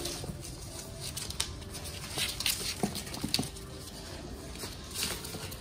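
Puppies suckling at their mother's teats: a run of small sucking and smacking clicks, with a few louder ones about halfway through.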